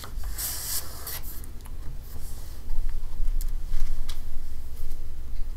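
Handling noises on a meeting table: a rubbing hiss near the start, scattered clicks, and heavier low thumps from about halfway as a laptop is set down and opened. A steady low hum runs underneath.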